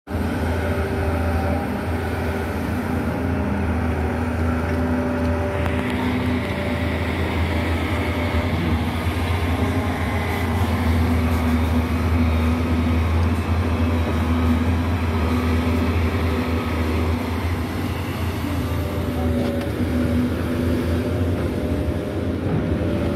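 Doosan crawler excavator's diesel engine running steadily under load as it digs, with a higher whine that comes and goes several times.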